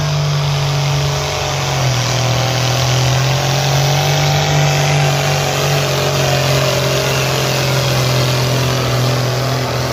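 Diesel tractor engine at full power pulling a weight-transfer sled, running loud and continuous. Its note drops a little about two seconds in, then holds steady under the load.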